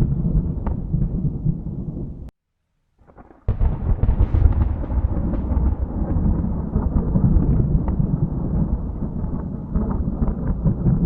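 Thunder rumbling, cut off abruptly to silence about two seconds in. About a second later a sharp thunderclap breaks in and rolls on into a long, deep rumble.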